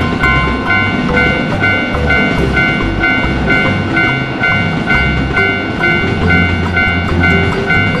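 Japanese railroad crossing warning bell ringing in a steady, even rhythm, with an electric commuter train running past and background music with a beat.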